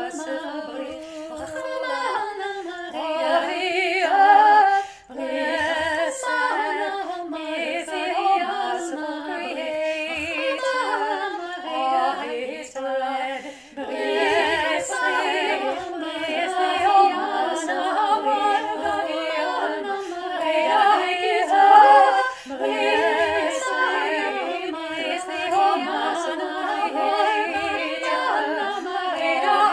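A cappella vocal music: one woman's voice multitracked into several parts singing together in harmony, with no instruments.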